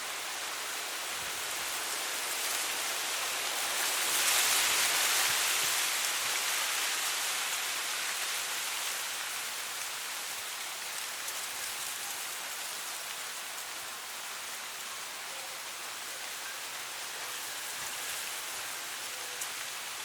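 Wind rustling through dry grass: a steady hiss that swells about four seconds in and then eases off again.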